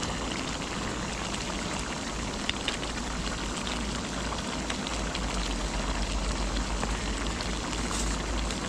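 Pan of zucchini stew simmering on a cartridge gas camping stove: a steady bubbling hiss. Two light clicks from a handled seasoning bottle about two and a half seconds in.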